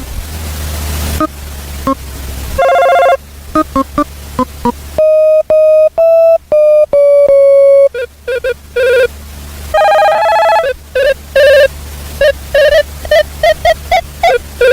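The Casio CTK-245 keyboard's built-in telephone sound-effect tone, played on the keys. It gives a run of short electronic ringing beeps and a stepped series of held tones. A noisy hiss with a low rumble comes first, lasting about two and a half seconds.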